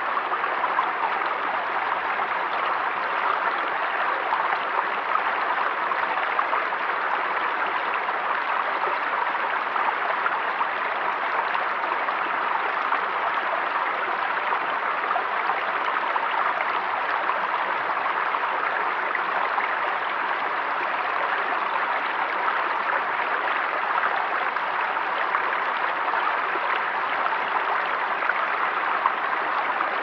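Small rocky forest stream running steadily over stones and a low cascade.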